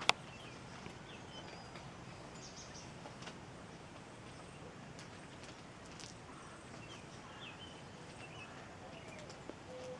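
Several wild birds chirping and calling faintly, with scattered short chirps and trills over a steady background hiss. A sharp click sounds at the very start.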